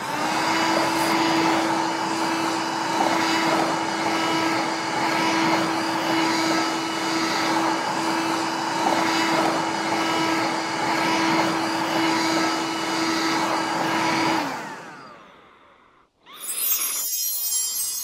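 Toy vacuum cleaner's small motor running with a steady whir and hum, then dropping in pitch as it winds down and stops about fifteen seconds in. A short tinkling chime starts near the end.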